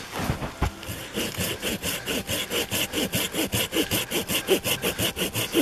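Folding pruning saw cutting through a green sapling, the toothed blade rasping back and forth through the wood. A few spaced strokes at first, then a quick, steady sawing rhythm from about a second in.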